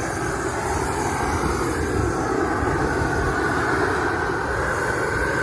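Gas torch burning at the mouth of a large paper balloon to fill it with hot air: a steady rushing noise with a faint whistle that rises slightly near the end.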